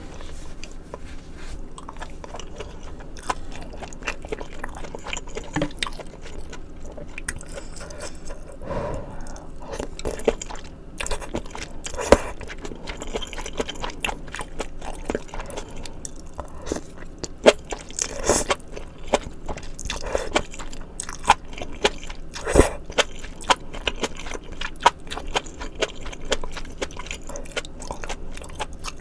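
Close-miked eating sounds: a person chewing and biting into maratang, with frequent short, sharp crunches.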